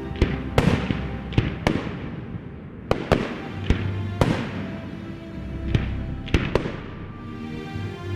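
Fireworks exploding in an irregular run of sharp bangs, each trailing off, over background music with held notes.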